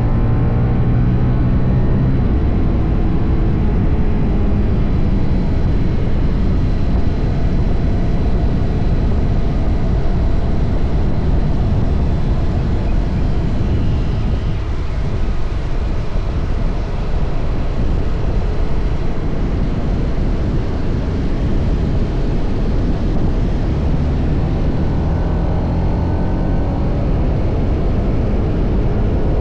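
TVS Apache RR 310's single-cylinder engine through its stock exhaust while riding, under a steady rush of wind and road noise. The engine note climbs through the revs at the start and again about 24 seconds in.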